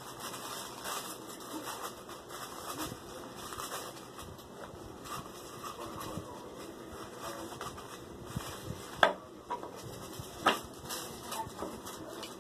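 Light rustling and handling of tissue paper during crafting, with two sharp clicks about nine and ten and a half seconds in.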